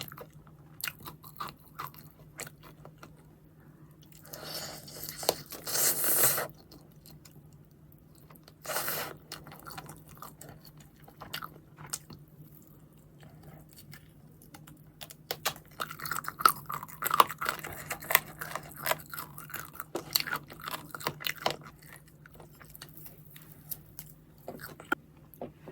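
Close-up eating of crispy fried chicken: crunchy bites and chewing, heaviest in a dense run of crackling crunches in the second half. Two louder, rougher noisy bursts come about five and nine seconds in.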